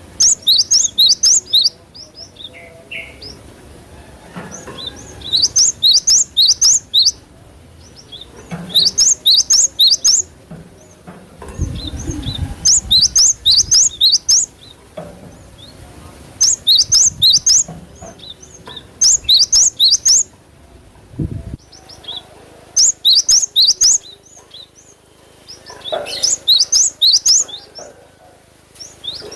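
Cinereous tit (gelatik batu) singing: short, rapid phrases of high repeated chirping notes, coming in bursts about every three to four seconds.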